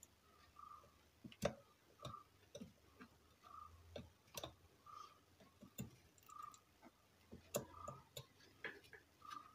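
Faint, irregular small clicks and taps from a soldering iron working the pins of an amplifier IC on a circuit board, with a faint short high chirp repeating about every second and a half.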